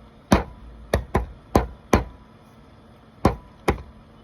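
Sharp knocks struck by hand, seven in an uneven rhythm: five in the first two seconds, then a pause, then two more.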